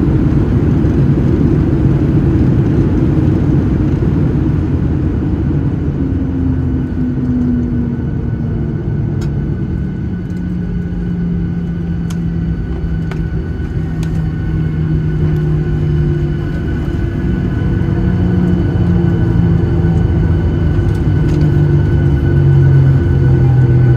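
Cabin noise of a Boeing 737-800 rolling down the runway after touchdown: a steady, loud rumble of wheels and engines, with an engine hum that shifts in pitch. A few faint clicks come through now and then.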